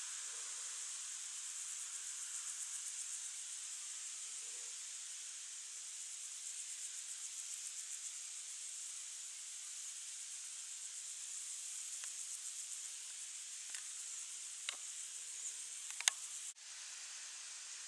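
Steady high-pitched hiss with a fine, rapid pulsing, from insects stridulating in the meadow grass. A few faint ticks come near the end, then one sharp click, and the sound breaks off for an instant before resuming slightly quieter.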